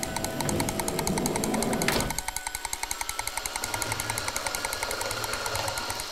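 Cartoon sound effect of an ice cream machine running: a rapid, even mechanical clatter of about seven beats a second, with a single knock about two seconds in.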